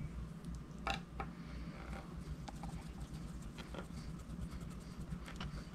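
Screwdriver working the small screws of a Telecaster's output jack plate: faint scattered clicks and scratches, about one a second, over a low steady hum.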